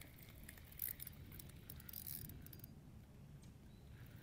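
Faint clicking and rattling of a spinning reel being handled and cranked, with brief scratchy bursts about a second and two seconds in, over a low steady rumble.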